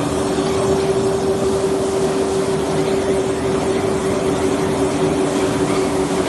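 Steel coil slitting line running, with slit strip winding onto the recoiler: a steady machine hum over constant mechanical rushing noise.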